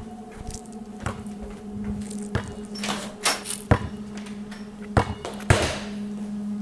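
A steady low hum with a scattering of knocks and thuds, two of them followed by a short swish: a door being opened and pushed through, with footsteps.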